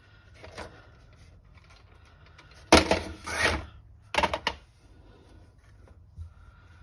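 Handling noise on a steel workbench as plastic instrument-cluster parts are moved about and a microfibre towel is spread out. It comes as two bursts of clatter and rustle, about three and four seconds in.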